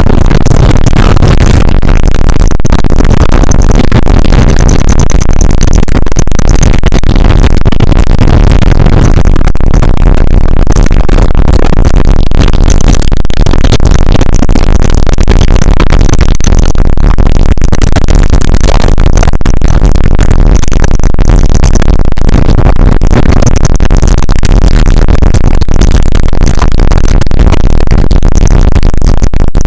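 Loud, harsh electronic music, dense and noisy with heavy bass, running without a break.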